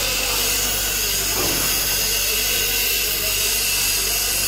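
Steady loud electrical hum with a low mains-frequency drone, from a homemade welding transformer under power, under an even hiss of workshop noise.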